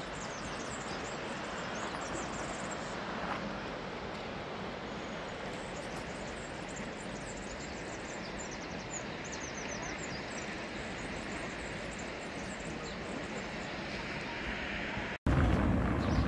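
Steady outdoor rushing noise with small birds chirping high up now and then. About fifteen seconds in it cuts off suddenly to a louder low rumble.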